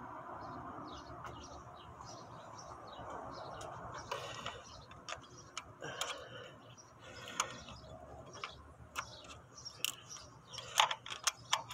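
Faint metallic clicks and taps of a flathead screwdriver working a replacement rocker arm (roller cam follower) into place against the camshaft of a 3.6 Pentastar V6, the clicks coming thicker near the end.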